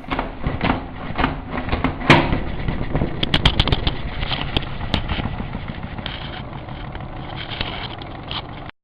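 Salad spinner being spun: a steady whirring rumble with many clicks and rattles, cutting off suddenly near the end.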